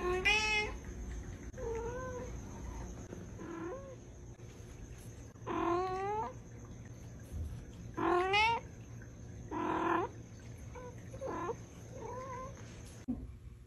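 A cat meowing repeatedly: about eight short calls, several rising in pitch. The three loudest come in the middle.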